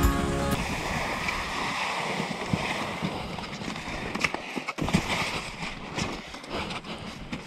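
Skis scraping and crunching over crusty spring snow, with scattered clicks and knocks from the skis and poles. Background music stops about half a second in.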